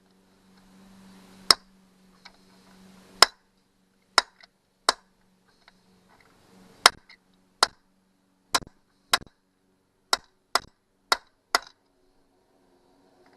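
Hammer striking a steel pin punch set on a broken, rust-seized screw stud: about a dozen sharp metallic taps, spaced irregularly and coming quicker in the second half. The punch is being driven in to make a dimple for a drill bit to grab.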